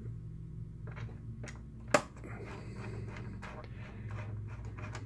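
Small hand screwdriver driving T10 Torx screws into a projector's metal housing: light ticks and scrapes of the bit turning in the screw heads, with one sharp click about two seconds in, over a steady low hum.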